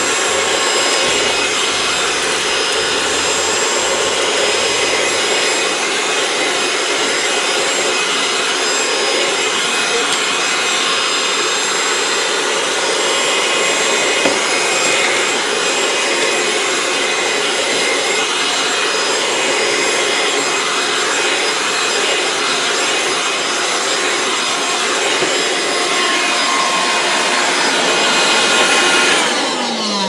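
Loftek cordless handheld car vacuum running steadily with its brush attachment over carpet, sucking up cracker crumbs and grass bits. Near the end it is switched off and the motor's whine falls away as it winds down.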